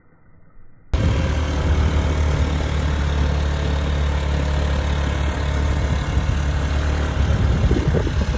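Motorbike engine running steadily on the move, with wind noise over the microphone; it starts abruptly about a second in, after near silence.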